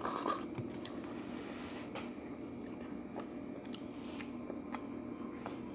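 A person eating oatmeal: soft chewing with a few light clicks, over a steady low hum.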